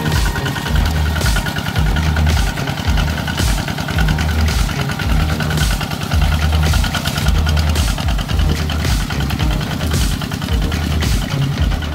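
Single-cylinder diesel engine of a Kubota ZT140 walking tractor running under load as it drags a disc plough through deep mud. Its low note pulses about once a second.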